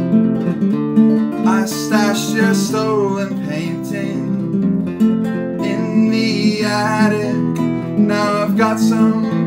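A man singing a folk song over his own nylon-string classical guitar. The guitar plays alone at first, and the voice comes in about a second and a half in.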